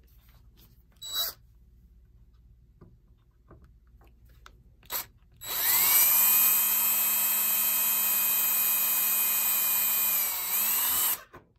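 Cordless drill spinning up and running steadily for about six seconds, a whine that dips and rises again just before it stops, as a 3/32-inch bit drills a pilot hole into the metal case of a Telechron H clock rotor. Two short clicks come first, about a second in and about five seconds in.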